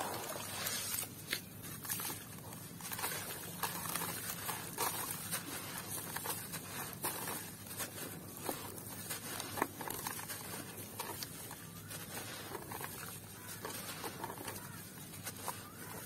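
Hands crumbling lumps of grainy red dirt into a basin of muddy water: an irregular patter of falling grains and small crunchy crackles. Wet squishing of mud sits under the opening moments.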